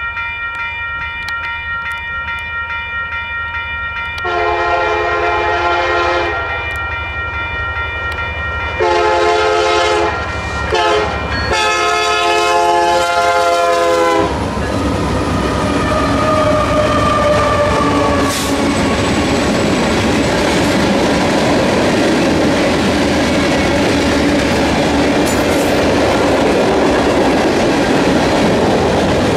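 Railroad crossing bell ringing, then a locomotive air horn sounds the grade-crossing signal: two long blasts, a short one and a final long one. From about halfway in, the train passes with a steady rumble and the clickety-clack of wheels over rail joints.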